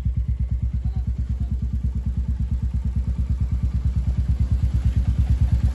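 Royal Enfield Meteor 350's single-cylinder engine idling through a Red Rooster Polestar Pro stainless-steel aftermarket silencer: a steady, even beat of about eight exhaust pulses a second.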